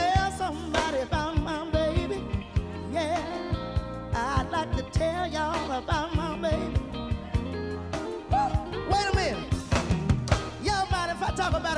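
Live blues band playing: drums, electric bass and electric guitar over a steady beat, with a wavering, bending lead melody on top.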